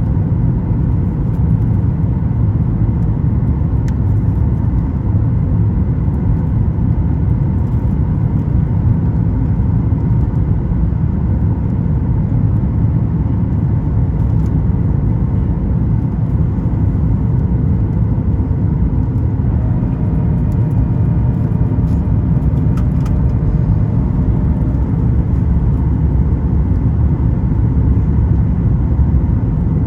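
Steady cabin noise of a Boeing 737 MAX 9 in flight: a deep rumble of its engines and the airflow, heard from inside the cabin, with a faint steady hum over it. About two-thirds of the way through, faint rising tones come in briefly.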